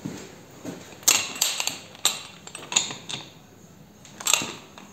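Sharp clicks and knocks, about seven of them at irregular spacing, as a digital crane scale with a steel hook and shackle is picked up and handled.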